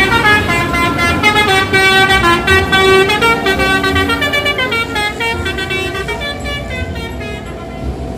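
Telolet bus horn playing a tune: several horn tones sound together and change pitch in quick steps. It stays loud for about five seconds, then gradually grows quieter.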